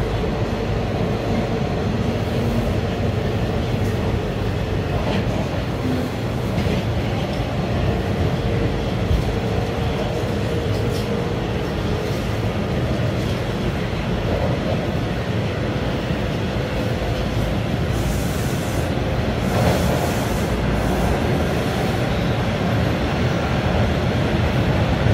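TTC Line 2 subway train heard from inside the car while running in the tunnel: a steady rumble of wheels on rail with a faint motor whine that comes and goes. There are a couple of brief hissy bursts about three-quarters of the way through.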